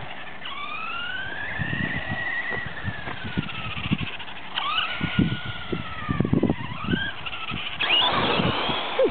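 Traxxas Rustler RC truck's brushless motor and gearing whining on its first run, the pitch sliding up and down as it speeds up and slows, with irregular knocks and crunches underneath and a loud rush of noise about eight seconds in.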